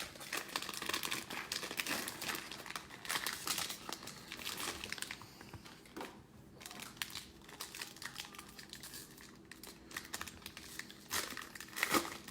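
Plastic wrapper of a trading-card cello pack crinkling and tearing as it is opened. The crackling is busiest in the first few seconds and comes again in a short louder spell near the end.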